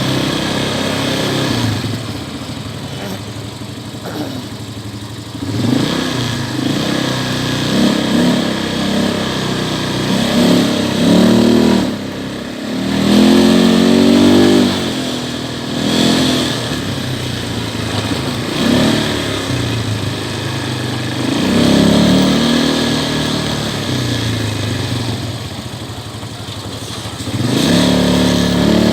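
A 180 ATV's engine running and revved up and down in a series of surges, its pitch rising and falling again, the longest and loudest push coming about halfway through.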